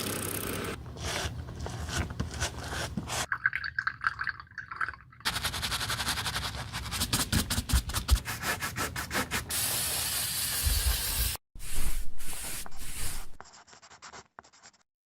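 Short cut-together snippets of shoe-repair work: sanding, rubbing and scraping on shoe leather and heels, with a run of quick even strokes in the middle. Each snippet cuts off abruptly into the next, and the sound dies down near the end.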